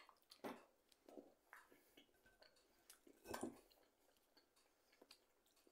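Faint chewing and mouth sounds of a man eating from a fork, with scattered small clicks and one louder sound a little past halfway.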